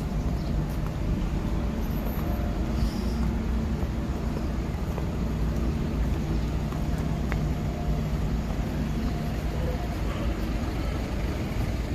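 Steady city street ambience: traffic noise with a low, even hum.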